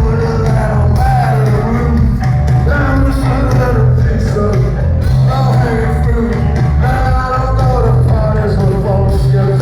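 Live rock band playing loudly, with a heavy low bass-and-drum end and a singer's voice carrying a melody over it.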